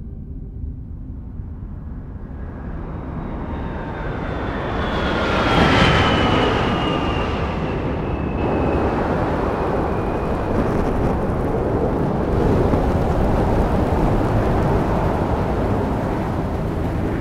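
Library sound effect of a craft diving into a planet's atmosphere: a rushing rumble that builds to a peak about six seconds in, with a high whistle sliding slowly downward, then settles into a steady dense rush.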